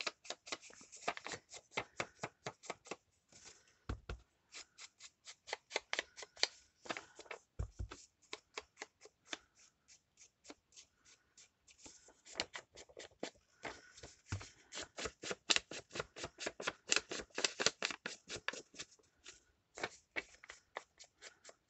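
Short, scratchy strokes against paper in a quick, even run, about four a second, with a few brief pauses and a couple of low bumps.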